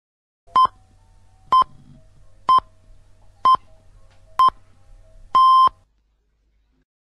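Six electronic beeps at one steady pitch, about one a second, the sixth held longer, in the pattern of a radio time signal; a faint low hum runs beneath them.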